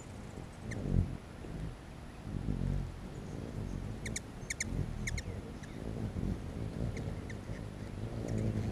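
Hummingbirds' wings humming as they buzz in and out around a feeder, the hum swelling and fading, with a quick series of sharp high chip calls about four to five seconds in and a few more chips near the end.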